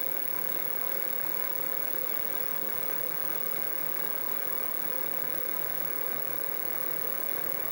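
Sieg SX2P mini mill's spindle motor running steadily as a small twist drill spot-drills through a hole in the steam chest cover.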